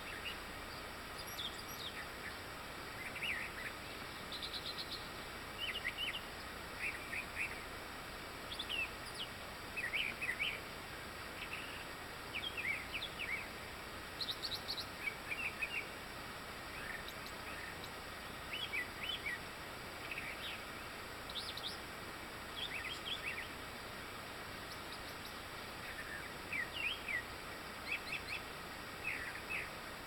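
Songbirds singing at dawn in woodland: short chirps and quick runs of high notes, one after another every second or two, over a steady background hiss.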